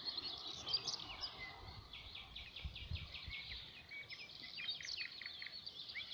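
Songbirds singing, several at once: overlapping high chirps and quick runs of rapidly repeated notes, with a faint low background hum of open-air noise.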